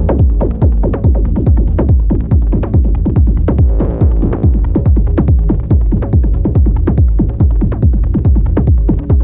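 Glitchy electronic modular-synth patch run through a Befaco Iroi effects module with heavy modulation: a fast repeating beat of about four pulses a second over a low bass drone and held tones. A hissy, smeared swell rises about four seconds in.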